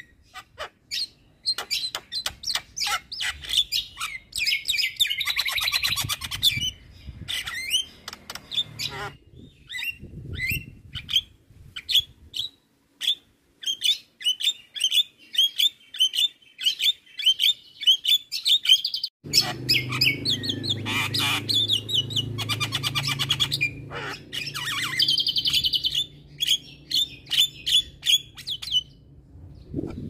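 Javan myna singing: a rapid, varied chatter of clicks, chirps and whistles, including a long run of quick repeated chirps in the middle.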